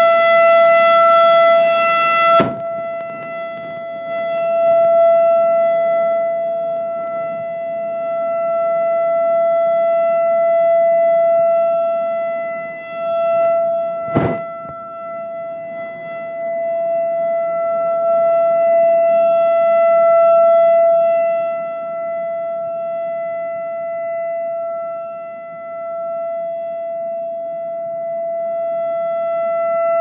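Civil-defense tsunami warning siren sounding one steady, unbroken tone, its loudness slowly swelling and fading. A loud hiss over it cuts off abruptly about two seconds in, and there is a single sharp click about halfway through.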